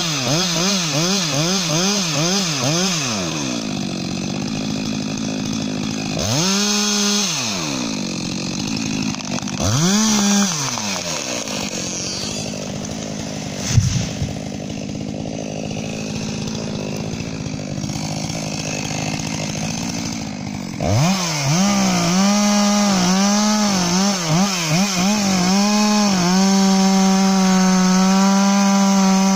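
New Stihl MS 462 two-stroke chainsaw cutting through a tree trunk, its engine note wavering under load, then blipped twice and left idling for several seconds. A single heavy thud about halfway through as the felled tree hits the ground. The saw then goes back to full throttle cutting wood and ends held at steady full revs.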